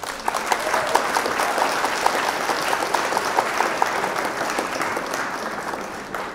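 Canned crowd applause: dense, loud clapping that cuts in abruptly and tapers off near the end.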